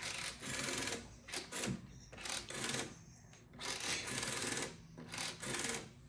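Rotary telephone dial being turned and whirring back, about five times, each return a short mechanical rasp lasting from under a second to about a second.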